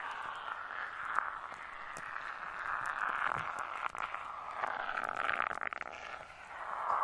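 Shaving cream foam recorded close up on a binaural microphone: a continuous wet, hissing rustle with fine crackles, getting busier about five seconds in.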